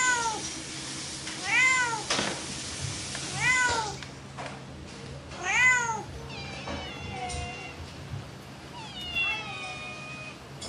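Domestic cat meowing repeatedly: four rising-then-falling meows about two seconds apart, the fourth the loudest, then several quieter, falling calls in the second half.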